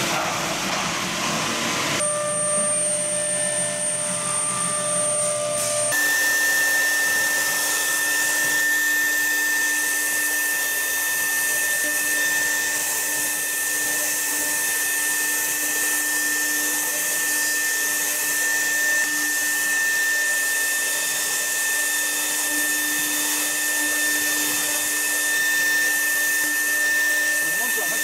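CNC router spindle cutting an aluminum plate: a steady high whine over a hiss. Its tones change abruptly about two seconds in and again about six seconds in, then hold steady.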